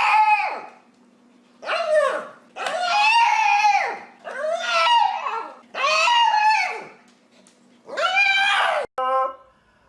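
A dog giving a run of drawn-out, whining howl-like calls, about six of them, each lasting around a second and dropping in pitch at its end. A faint steady hum runs underneath.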